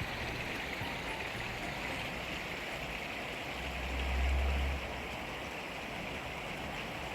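Steady outdoor rushing noise, with a low rumble swelling for about a second around four seconds in.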